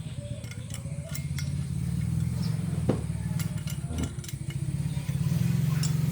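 An engine running steadily with a low, even pulse, growing louder about five seconds in, and a single sharp metallic tap about three seconds in.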